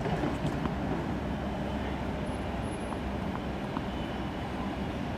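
Steady low outdoor rumble with a few faint, sharp knocks of tennis balls being struck by racquets.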